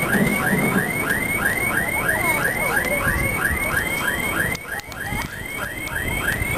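Car alarm sounding, a rapid run of short rising electronic chirps, about four a second, going on without a break.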